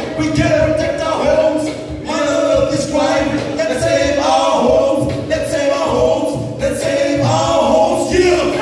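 Choir of men and women singing a lament a cappella through hand-held microphones, in phrases of long held notes.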